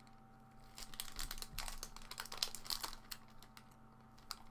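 Clear plastic candy wrapper crinkling as it is handled, in a burst from about one second in to about three seconds in.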